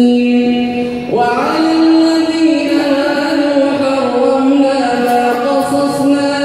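A man reciting the Quran in Arabic in the melodic, chanted style of tilawah, holding long drawn-out notes. The pitch steps up about a second in and then holds with small turns.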